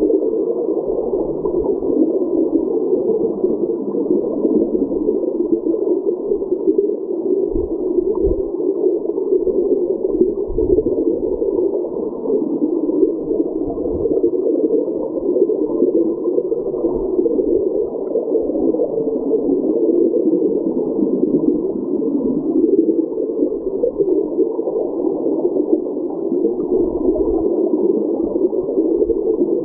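Creek water flowing, recorded underwater: a steady, muffled rush of current, with a few soft low thumps now and then.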